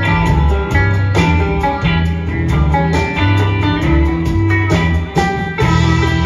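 Live string band playing a rock song: a rhythmic upright bass line under electric guitar, with banjo, fiddle and drums.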